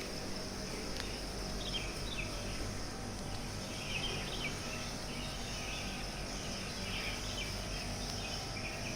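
Natural outdoor ambience: a steady high-pitched insect drone, with clusters of short bird chirps every second or two and a low steady hum underneath.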